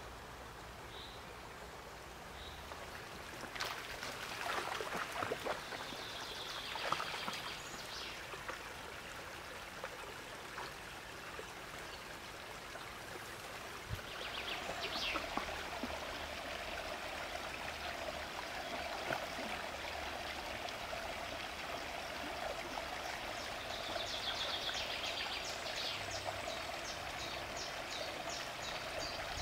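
Woodland brook flowing steadily, louder from about halfway through, with a few short high chirps now and then.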